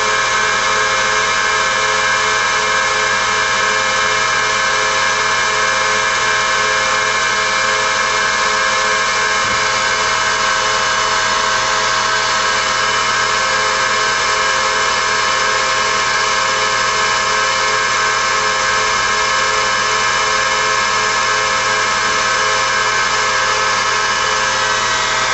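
Tsugami BS32C Mark II CNC Swiss-type lathe running: a steady machine whine of several tones, with a fast pulsing hum underneath, that does not change.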